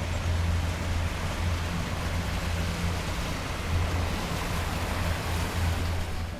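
Steady rushing noise with a deep low rumble underneath.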